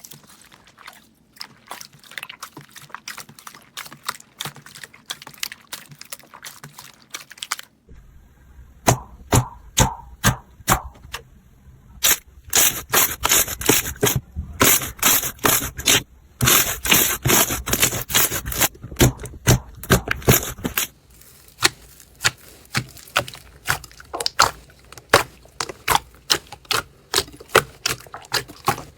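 Slime worked by hand: dense runs of sharp clicks, crackles and pops as it is squeezed, poked and stretched, in several short clips, with the loudest, quickest popping between about 12 and 21 seconds in.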